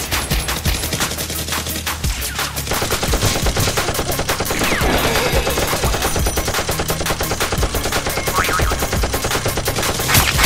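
Rapid automatic gunfire sound effects, machine-gun style, dubbed over the action, with bass-heavy background music underneath. The fire is densest from about two and a half seconds in.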